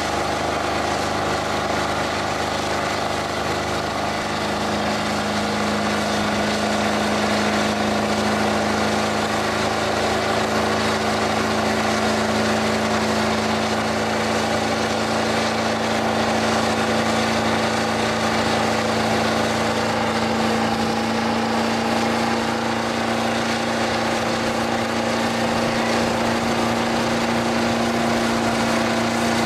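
Ford F-250 turbo diesel pickup, exhausting through bed-mounted stacks, held at steady high revs in a long stationary burnout with its rear tyres spinning and smoking on the pavement. The engine note rises slightly about five seconds in and then holds steady.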